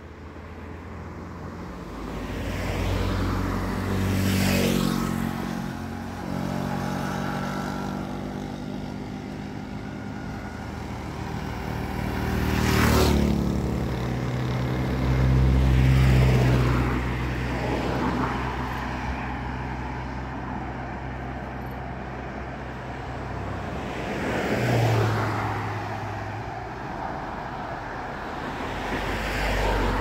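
Several cars passing one after another along a road, each engine and tyre noise rising and fading away. The closest, loudest passes come about halfway in, and another car passes near the end.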